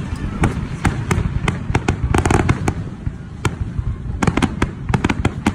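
Aerial fireworks display: a rapid string of sharp bangs and crackling pops over a low rumble, coming thickest about two seconds in and again near the end.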